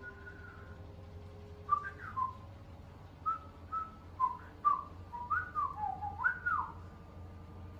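Long-coat Chihuahua whining: a string of short, high whimpers that slide up and down in pitch, running into a longer wavering whine near the end.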